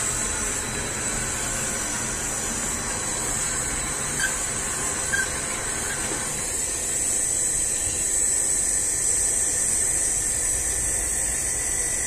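Water under pump pressure rushing through a gas water heater's hoses and water valve: a steady hiss that gets a little louder about six and a half seconds in.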